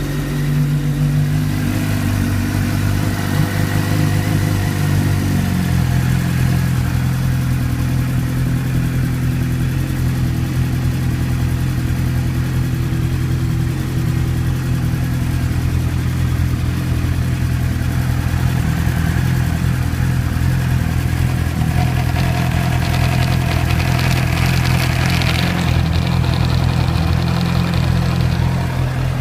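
2007 Suzuki GSX-R600 inline-four engine idling steadily, its idle dropping in pitch about five seconds in. The owner hears an abnormal noise from the crankcase on the stator side once the revs settle, and does not know its cause.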